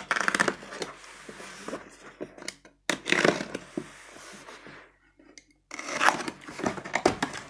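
Utility knife blade slitting the packing tape along the edge of a cardboard box, in three bouts of cutting with short pauses between them.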